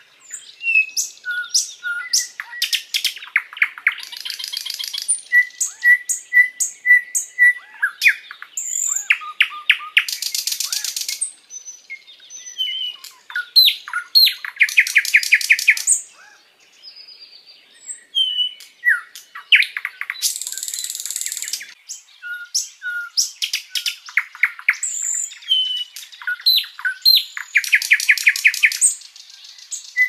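Sikatan londo songbird singing a long, varied song in phrases: runs of clear repeated whistles, fast trills and buzzy rattles, with short pauses between phrases.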